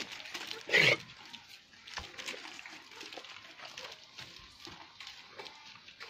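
Goats in a pen: one gives a single short, loud, harsh call a little under a second in, among scattered light scuffs and knocks as the herd moves about.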